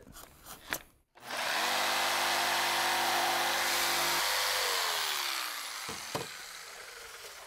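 Corded jigsaw cutting plywood, its blade running into the foam insulation board underneath. The motor runs steadily for about three seconds, then winds down with falling pitch when the trigger is released. Two short knocks follow near the end.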